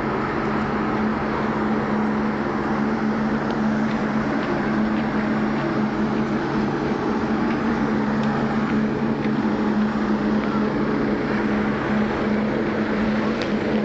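A steady low mechanical hum, holding two unchanging pitches, over outdoor street noise.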